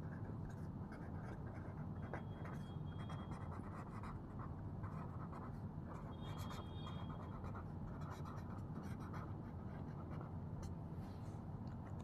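Marker pen writing on paper: faint, scratchy handwriting strokes, with a couple of brief high squeaks.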